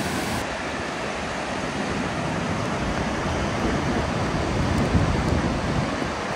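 Gullfoss waterfall rushing with a steady, even noise, with wind buffeting the microphone in uneven low rumbles.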